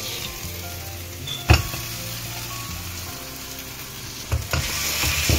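Onion-tomato masala sizzling in a pan as potatoes are added and stirred in with a spoon. Sharp clacks of the spoon against the pan, the loudest about a second and a half in and a few more near the end, where the sizzling gets louder.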